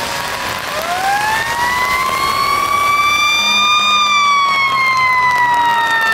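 Fire truck siren winding up in a slow rising wail over about three seconds, then gliding slowly back down. A second siren sounds beneath it at a steadier pitch.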